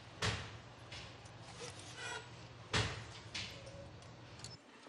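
Hand loom at work: a series of wooden knocks and sliding thuds, the loudest a little under three seconds in, over a low steady hum that stops near the end.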